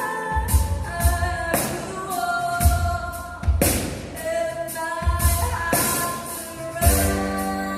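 Live trio music: a drum kit with kick drum and cymbal strikes about once a second, under held keyboard chords and a singing voice.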